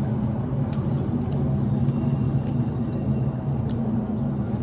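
A person chewing food, with small wet mouth clicks scattered through, over a steady low hum.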